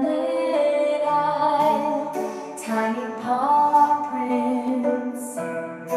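Background song: a female voice singing a gentle melody over soft instrumental accompaniment.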